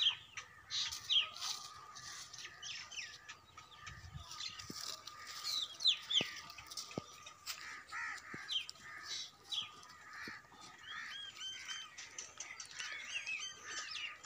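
Birds chirping: a continuous chatter of short, high calls, many sliding downward in pitch and overlapping one another.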